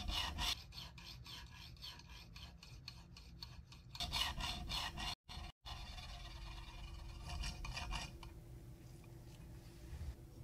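Steel burnisher stroking a watch balance-staff pivot turning in a Jacot lathe: a quick, rhythmic rasping rub that comes in spells with short breaks. The pivot is being burnished down a hundredth of a millimetre or two so it turns freely in its jewel holes.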